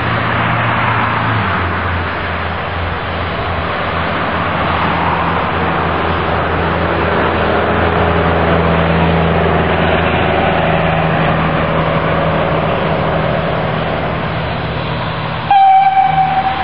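Narrow-gauge steam locomotive moving slowly with its cylinder drain cocks open, giving a steady hiss of escaping steam. About a second before the end its whistle sounds suddenly, one loud steady note.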